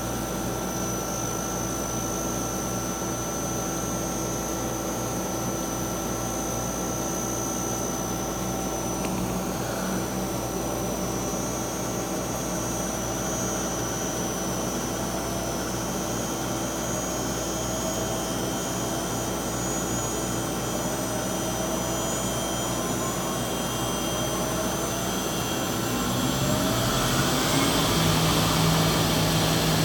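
Yang CNC lathe running a cut behind its closed door with coolant on: a steady mechanical hum with a constant high whine. It grows louder near the end, with shifting tones as the cut changes.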